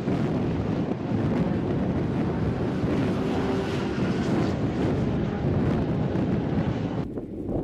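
Strong wind buffeting the microphone, with the engines of cars on the track heard under it. It thins out about seven seconds in.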